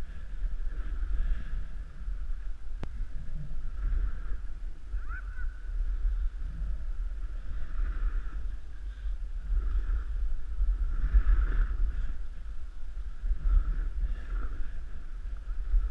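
Wind rumbling on the microphone of a skier's camera on a downhill run, with the hiss and scrape of skis on packed snow swelling and fading through the turns.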